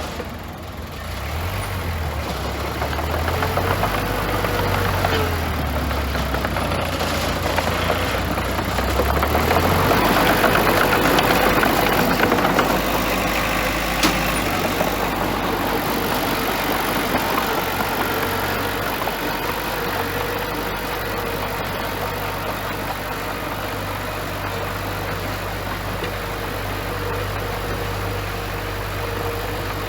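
Bulldozer's diesel engine running under work. Its pitch shifts up and down in the first ten seconds and it grows louder for a few seconds. A single sharp knock comes about fourteen seconds in, and the engine then runs steadily.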